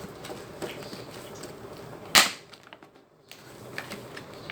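A package being opened and handled: scattered small clicks and rustles, with one sharp snap or knock about two seconds in.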